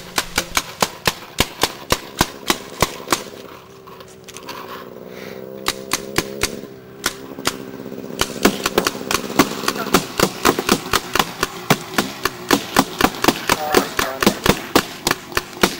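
Paintball markers firing rapid, uneven volleys, several sharp shots a second, thinning out for a few seconds in the middle before picking up again.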